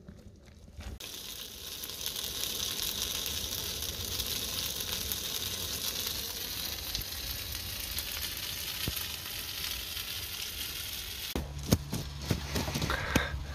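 Steady, even hiss of rain falling on the lake. A low hum and a few sharp knocks join near the end.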